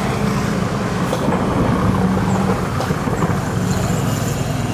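Street traffic: a car engine running close by, a steady low hum over a wash of street noise.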